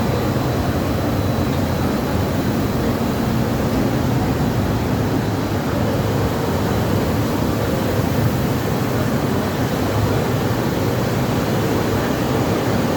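PE film recycling washing line running: a steady, loud drone of motors and machinery with a low hum and a faint high whine, unchanging throughout.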